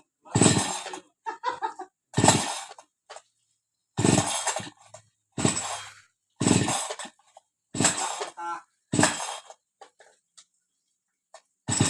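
Recoil starter cord of a new Sinso gasoline chainsaw being pulled over and over, about seven quick rasping pulls, one every second or so, with another starting near the end. The engine never catches: it is flooded with gasoline.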